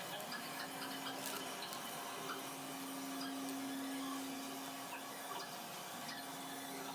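Faint, occasional light taps and clicks of small plastic items being handled, over a steady low electrical hum.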